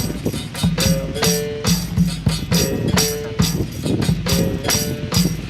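Instrumental capoeira music in a steady, repeating rhythm, with no singing: pandeiro jingles and drum strokes under a held tone that switches back and forth between two pitches, in the manner of a berimbau.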